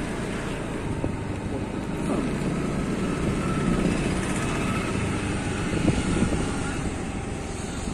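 A small motorbike engine running steadily while riding along a street, with road noise.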